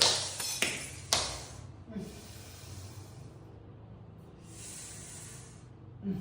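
Chiropractic spinal adjustment: a sudden burst of noise as the thrust lands, then two sharp joint cracks about half a second apart. A long breathy hiss follows later.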